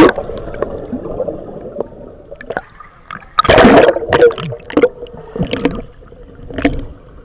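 Water churned by a person plunging into a river, heard through a submerged camera: a loud muffled rush of bubbles right at the start, then gurgling and churning water, with a second loud rush about three and a half seconds in and smaller gurgles after it.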